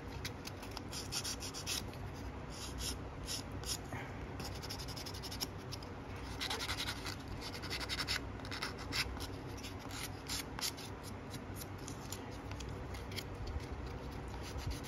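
Medium-grit sanding stick rubbing over a small plastic model part in short, light, irregular strokes: a soft dry scratching.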